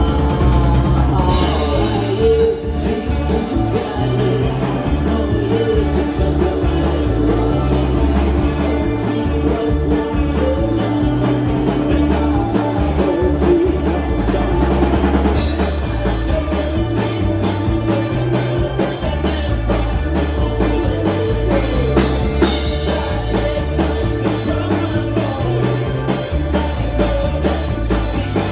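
Live band playing a rock song: drum kit keeping a steady beat over a repeating bass line, with tambourine and some singing in the mix.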